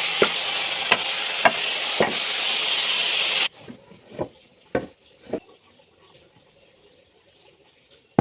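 Drum sander sanding wood: a steady loud noise with a click every half second or so, cutting off suddenly about three and a half seconds in. Three knocks follow.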